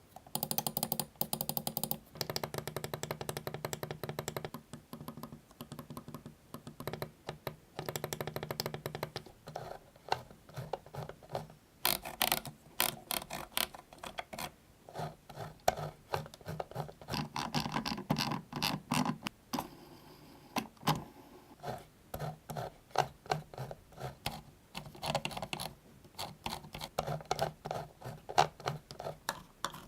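Computer mouse buttons being clicked over and over in quick runs of sharp clicks, with short pauses between the runs.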